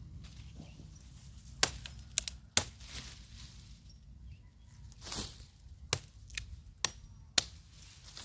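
Sharp chopping strikes of a hand tool, about eight blows at uneven intervals, over a steady low rumble.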